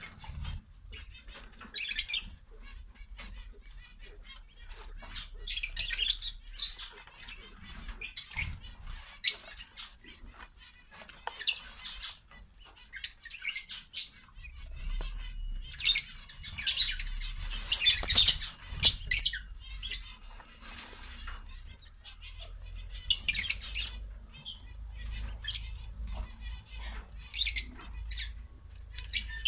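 Japanese quail feeding: scattered short bursts of pecking and rustling as they pick at seed and tug at leafy greens, busiest around the middle.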